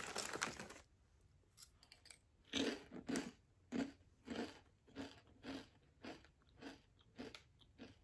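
Potato chip (Maui onion) crunched between the teeth: a bite, then crisp chews about twice a second that grow softer as the chip is ground down.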